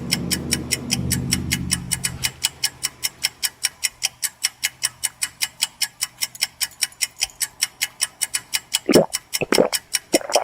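Rapid, even ticking of a countdown-style timer, about five ticks a second, with a low drone fading out over the first two seconds. Near the end, two or three short squeals sweep quickly downward in pitch.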